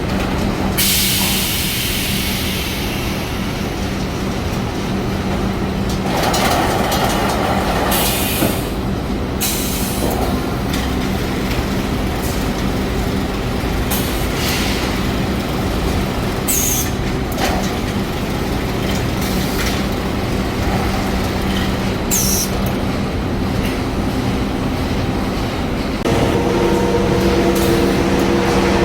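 Automated cardboard-handling conveyor line running: a steady motor hum and rumble, with short hisses now and then, and extra steady tones joining in near the end.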